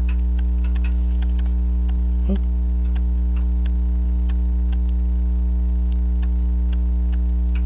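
French crystal regulator clock's open escapement ticking about two to three times a second with uneven spacing: the clock is running out of beat while its pendulum is being set by hand. A loud steady mains hum runs under it, from a camcorder on AC power that lacks a ground. There is a short handling bump about two seconds in.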